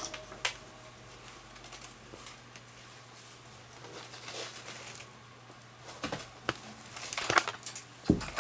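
A kitten's paws and claws tapping and scraping at a hamster cage's wire bars and plastic base, with rustling of the cloth it lies on. The tapping thickens about six seconds in, and a dull thump comes near the end as the kitten's body presses against the cage.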